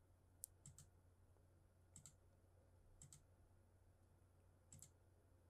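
Faint computer mouse clicks. Four press-and-release double ticks come roughly a second or more apart, with one sharper single tick just under half a second in, over a low steady hum.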